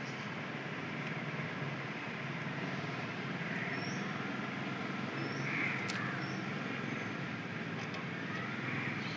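Steady low hum of engine or traffic noise, with a few short high chirps near the middle and one sharp click about six seconds in.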